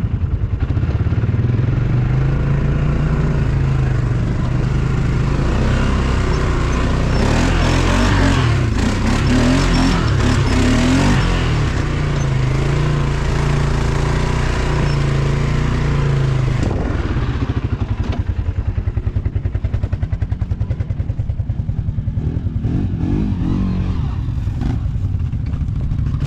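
CFMOTO 850 ATV engine running and revving unevenly. A harsher, noisier stretch comes about seven to eleven seconds in, and at about seventeen seconds the engine drops back to a steady idle.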